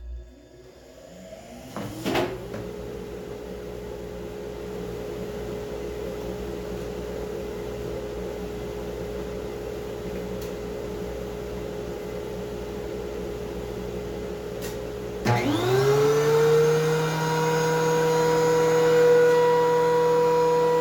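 Two electric machine motors starting one after the other in a woodworking shop, the thickness planer among them: the first spins up over about two seconds and settles into a steady hum, with a short knock just after, and about fifteen seconds in a second, louder motor starts with a rising whine and runs steadily alongside it.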